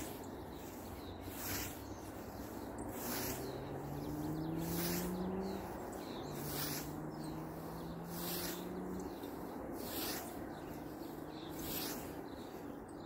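Scythe cutting through tall grass: a sharp swish with each stroke, about one every second and a half to two seconds, eight strokes in a steady rhythm.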